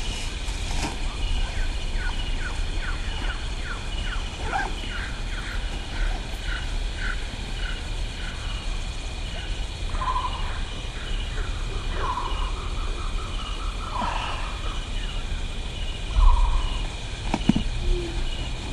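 Woodland ambience: birds calling, first a run of short falling chirps about two a second, then a repeated call every couple of seconds, over a steady high hum. A low rumble runs underneath, with a thump about sixteen seconds in.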